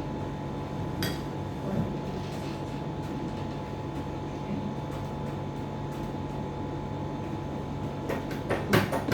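Steady hum throughout, with a sharp click about a second in and a quick run of knocks and clatter near the end.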